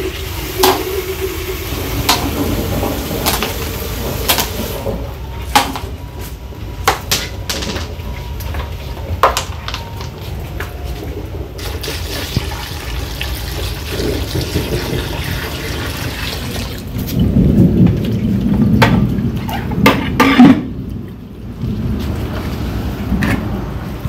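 Pebbles clicking as they are set into plastic basins, then water poured from a bucket rushing and splashing into a stone-filled plastic basin bird bath. The pouring starts about halfway through and is loudest a few seconds later.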